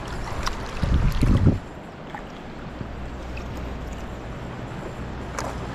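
Water lapping against a plastic sit-on-top kayak hull under a steady low wind rumble. About a second in, a brief louder low rumble that is the loudest sound here, and a few faint clicks.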